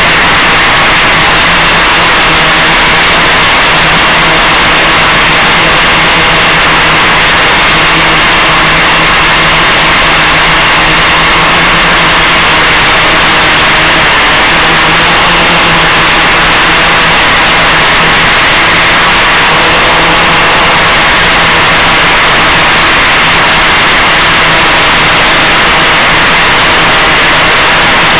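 Steady, loud hiss with a faint even hum underneath, carried on the audio channel of a helicopter's FPV video downlink and recorded by the ground receiver. It does not change in level or pitch.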